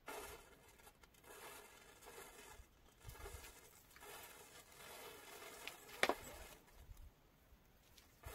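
Matchstick heads igniting one after another along a chain of matches: a faint fizzing crackle that comes and goes, with one sharp pop about six seconds in.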